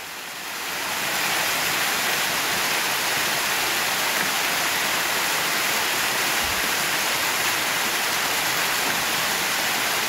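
Waterfall spilling over rock: a steady rush of falling water that swells over the first second, then holds even.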